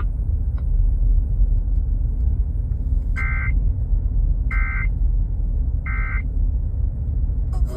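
Emergency Alert System end-of-message data tones: three short warbling bursts of digital SAME code, about 1.4 s apart, marking the end of the alert. A steady low rumble runs beneath them.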